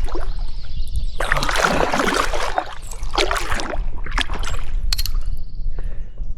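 Paddle strokes through water, sloshing and splashing in several uneven bursts over a steady low rumble.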